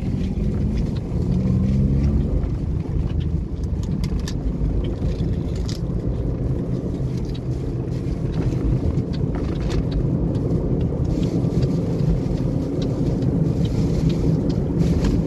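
Steady engine drone and road rumble of a moving vehicle, with a few faint clicks.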